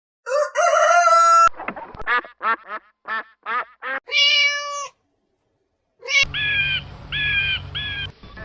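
Animal calls from separate clips cut together. First one call, then a quick series of about six short calls ending in a longer held call. After a second of silence come three matching calls near the end.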